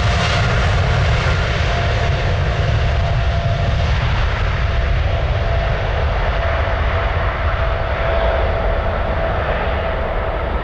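Boeing 777-300ER's twin GE90-115B turbofans at take-off power on the runway roll: a loud, steady jet roar with a deep rumble and a droning tone. The hiss fades as the jet passes and heads away.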